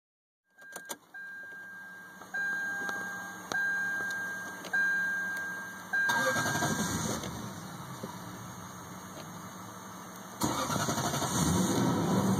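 A chime in the car sounds a repeated high tone, then the 1998 Lexus LS400's 1UZ V8 is cranked twice, about six seconds in and again near the end. The car has a no-start problem after stalling on the highway.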